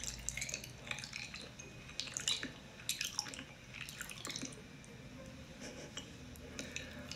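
Close-miked ASMR mouth sounds: quiet, irregular wet clicks and smacks of lips and tongue right at a condenser microphone.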